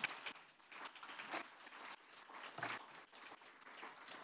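Audience applauding, a scatter of many irregular hand claps.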